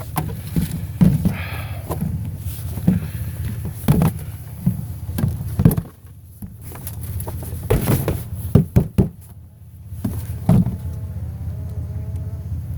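Knocks and thumps of curbside junk and plastic totes being handled and set down, over a steady low hum. Near the end a faint wavering tone sounds.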